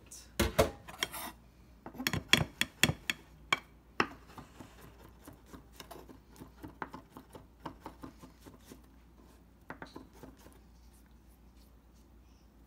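Chef's knife chopping and mincing preserved black beans on a wooden cutting board: a run of sharp knife taps on the wood, loudest in the first few seconds, then lighter, quicker taps that die away near the end.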